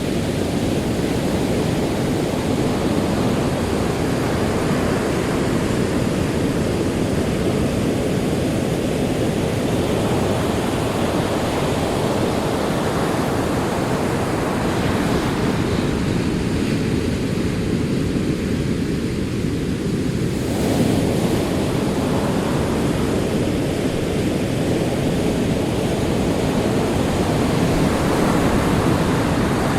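Ocean surf: waves rolling and washing ashore in a continuous deep rush, with the hiss of the spray rising and falling. A wave breaks sharply about two-thirds of the way through.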